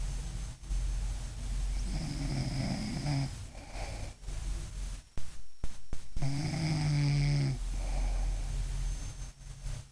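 A sleeping woman snoring: two long, pitched snores, about two seconds in and again about six seconds in, with softer breathing between them. A few sharp clicks come about halfway through.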